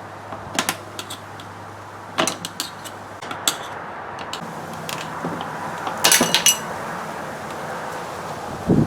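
Small steel chisel clicking and scraping against wood while prying old reed spline out of a chair seat's caning groove: scattered sharp clicks, with a quick cluster about six seconds in, over a low steady hum.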